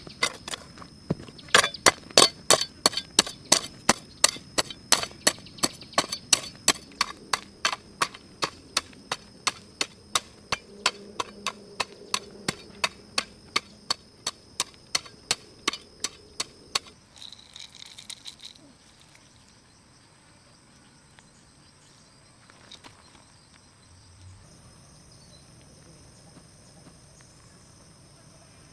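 Rapid, regular chopping strikes on wood, about three a second, getting weaker and stopping about seventeen seconds in. A few softer knocks follow, then faint steady insect chirping.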